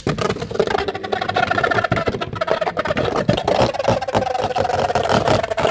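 Two Beyblade X spinning tops launched into a plastic stadium, then spinning and rattling across the floor with rapid clicking over a steady whine that sinks slowly in pitch. The tops never hit each other: the round is a no-contact.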